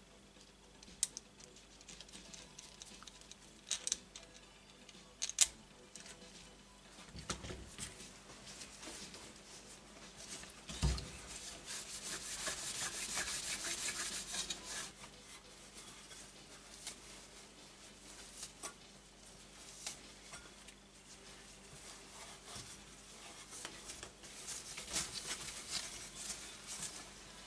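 Small metal clicks from a steel hose clamp being handled, then a paper towel rubbing and rustling over a stainless exhaust pipe as it is wiped clean. There is one dull thump about eleven seconds in, and a second spell of rubbing near the end.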